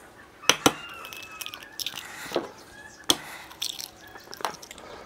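Raw eggs being cracked for sausage mince: a few short sharp knocks of shell, with a faint high drawn-out call about a second in.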